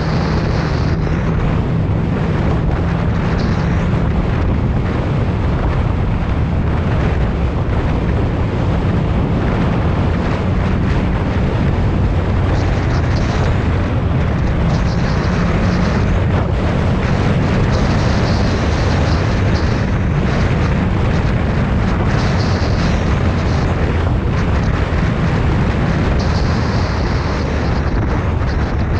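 Wind rushing loudly over the microphone of a motorcycle on the move, with the 2014 Yamaha FZ-09's three-cylinder engine running steadily underneath.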